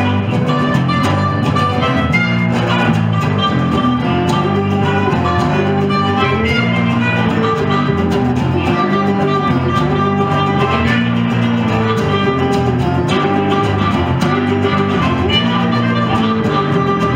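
Live blues band practice with no singing: a resonator guitar, a harmonica playing held, wailing lines, and an electric guitar over a repeating low riff.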